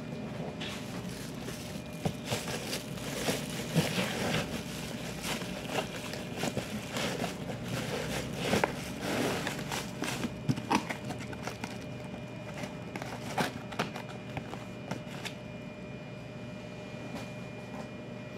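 Cardboard product box being handled and opened: irregular crackling, scraping and crinkling of cardboard and packaging, busiest in the first ten seconds or so, then thinning out.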